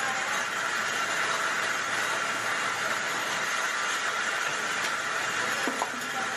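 Traub automatic lathe running steadily while it turns small metal pins, with coolant pouring over the work: an even, constant machine noise.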